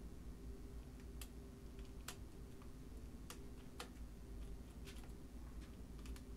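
Light, irregular metallic clicks from the number wheels and carry dogs of a 1925 Burroughs Class 5 mechanical calculator as they are nudged with a pick and a fingertip. The carry mechanism is badly jammed and stiff. A faint steady hum runs underneath.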